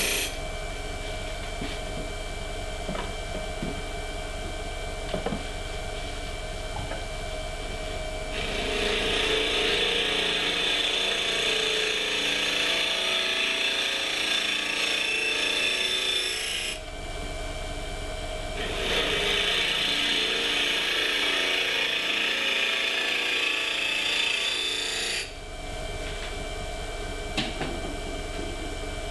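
Wood lathe running while a turning tool cuts the inside of a spinning olive wood box blank. Light scraping at first, then two stretches of louder hissing cuts of about eight seconds each, with a short break between them. Near the end the tool comes off and only the lathe keeps running.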